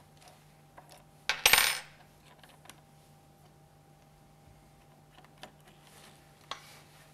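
A steel Allen key dropped onto a tabletop, landing with a sharp clack and a short ringing metallic clatter about a second and a half in. Faint clicks of hands handling the plastic pump body follow.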